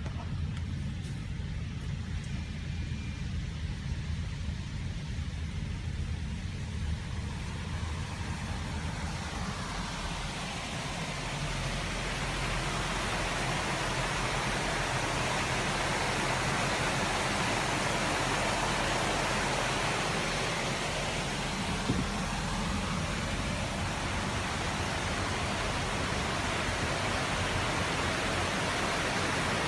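Car driving slowly with a low road rumble. From about ten seconds in, a loud, even rushing hiss swells in over it and stays up to the end.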